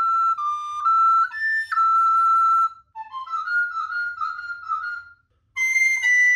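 Solo recorder playing a simple stepwise melody in short phrases, with brief breaks about three seconds in and again after five seconds.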